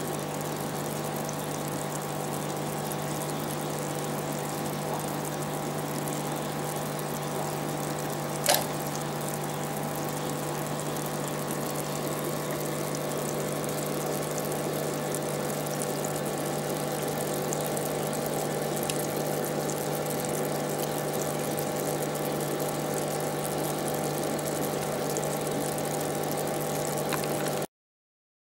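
Steady running of aquarium equipment: a pump humming and water moving, with a single sharp click about eight and a half seconds in.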